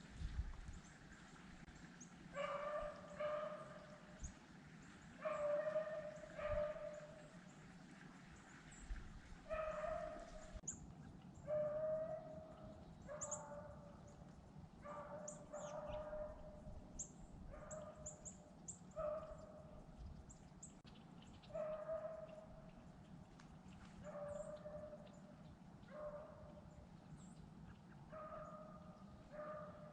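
A hunting dog baying faintly on a running rabbit's track, giving repeated drawn-out calls at irregular intervals.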